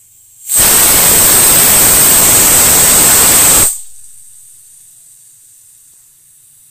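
Pressure cooker whistle: a loud blast of steam with a shrill tone on top, escaping past the weighted valve for about three seconds and then dying away to a faint hiss. The whistle is released as the cooker reaches pressure, and the whistles are counted to time the cooking.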